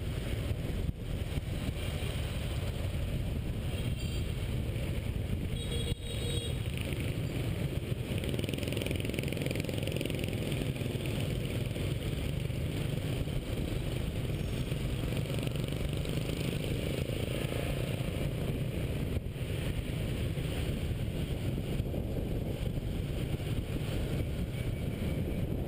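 Riding a motorbike through dense scooter traffic: steady wind rush on the action camera's microphone mixed with engine and road noise. A couple of brief horn beeps come about four and six seconds in.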